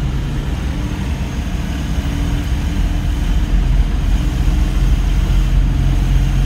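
Vehicle engine running as it drives along a street, heard from inside the cab: a steady low hum that grows a little louder about three seconds in.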